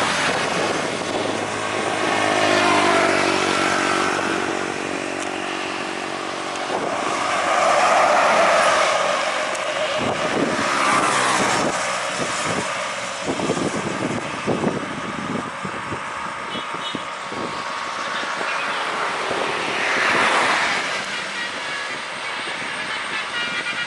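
Bus running, with a Basuri telolet multi-tone horn sounding several times: about two seconds in, again around eight seconds and once more near twenty seconds.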